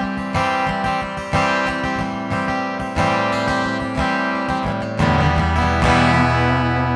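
Acoustic guitar strumming at a steady pace, then a final chord struck about five seconds in and left to ring out as the song ends.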